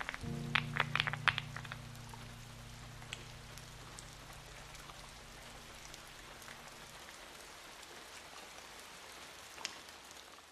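Keystrokes on a fully filled WOB Rainy 75 mechanical keyboard, a quick run of clacks in the first second and a half, over a soft sustained low music chord that stops about seven seconds in. After that only a faint steady hiss remains, with a few isolated ticks.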